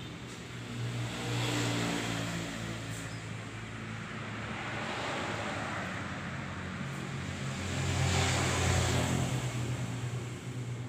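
A motor vehicle's engine running steadily, with two louder swells, one about a second and a half in and a longer one near the end.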